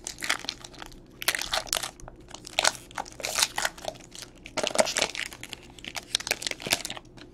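Foil wrapper of a trading-card pack crinkling and tearing as it is pulled open by hand, a run of irregular crackles that stops about seven seconds in.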